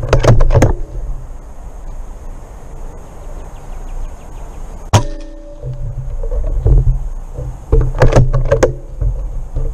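A single sharp shot from a .25-calibre PCP pellet rifle about five seconds in. Clusters of quick clicks and knocks come near the start and again about eight seconds in, over a low rumble.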